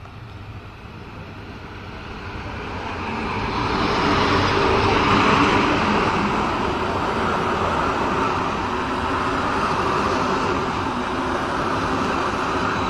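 A Henschel diesel locomotive pulling a passenger express approaches and runs past close by, its noise building over the first few seconds. The steady, loud rush of the train's coaches rolling by follows. A single sharp click right at the start.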